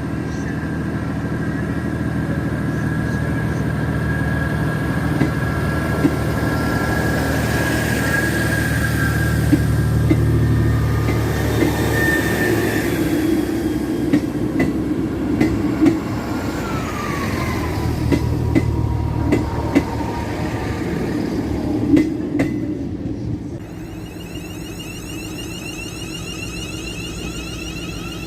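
A train running through the station, with a steady low hum from its traction. High wheel squeal comes in, with one tone falling in pitch about halfway through. In the second half the wheels click sharply over the rail joints, and the sound drops off near the end.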